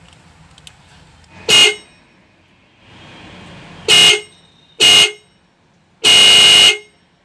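Maruti Suzuki 800's electric disc horn sounding in four blasts, three short and then a longer one. It is being tested after repair and works.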